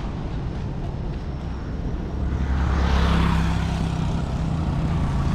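Motor vehicle engine running with a steady low hum, and the louder rush of a vehicle going past about three seconds in.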